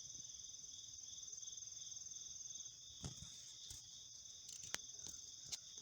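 Faint steady chorus of crickets trilling, a continuous high-pitched sound, with a few short clicks in the second half.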